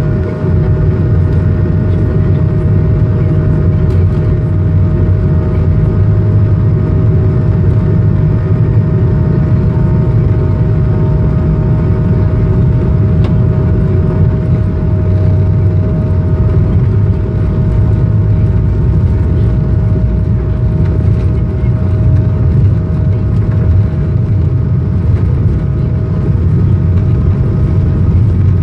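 Cabin noise of an Airbus A220-300 taxiing: steady running of its Pratt & Whitney PW1500G turbofan engines, a low rumble under a constant high whine, heard from inside the cabin.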